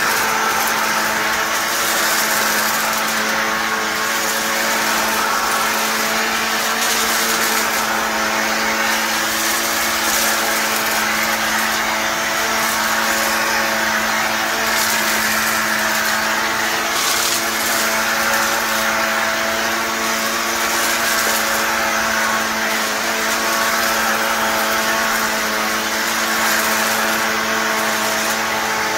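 Vacuum cleaner running steadily, its motor holding one constant pitch over a hiss of rushing air.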